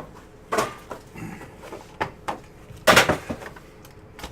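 Knocks and clatter from a trading-card box being handled and opened, with a faint rustle in between. The loudest knock comes about three seconds in.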